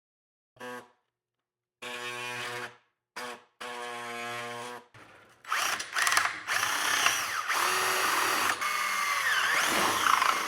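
Power drill motor spun up in several short trigger pulls, then running steadily for about five seconds as the bit drills holes through the plastic grille.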